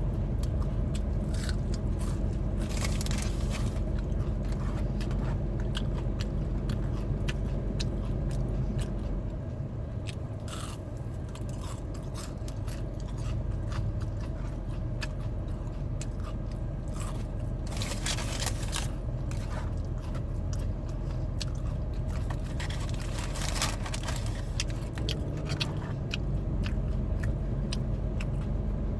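Someone biting and chewing crispy battered onion rings: soft chewing with a few loud, sharp crunches spread through, over a steady low hum.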